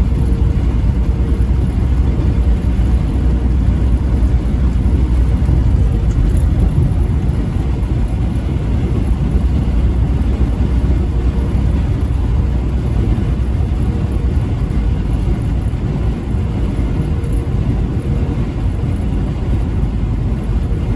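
Steady low rumble of a moving heavy vehicle, running on without a break.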